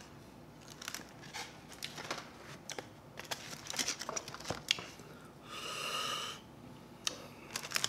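Close-up eating sounds: scattered faint mouth smacks and clicks while chicken wings are handled in paper-lined containers. Near six seconds in there is a drawn-out breath lasting about a second.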